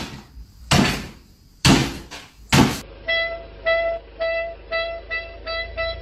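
Four dull thumps about a second apart, then a car's reversing parking-sensor beeping: one steady tone repeated about twice a second, speeding up as the car backs closer to an obstacle.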